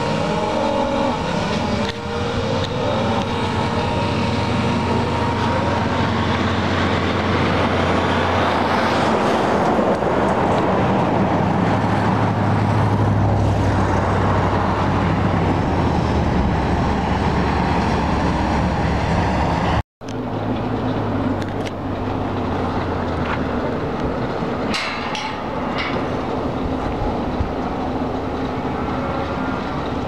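A herd of cattle on the move, making a loud, steady rumbling din. It drops out for a moment about two-thirds of the way through, and a few sharp clicks come near the end.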